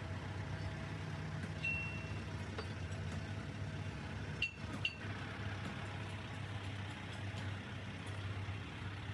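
Steady low machine hum, like an engine running, with a short high metallic ring a little under two seconds in and two sharp metal clinks about halfway through.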